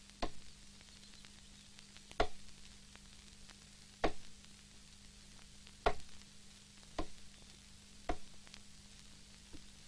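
Axe chopping into a log: six sharp blows, one to two seconds apart, each with a short ring.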